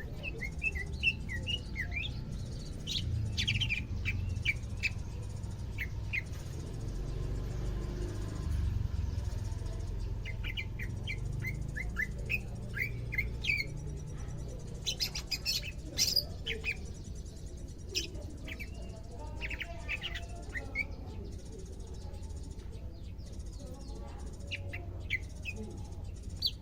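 Greater green leafbird (cucak ijo) calling in clusters of short, quick chirping notes, with pauses of a few seconds between the bursts. A steady low hum runs underneath.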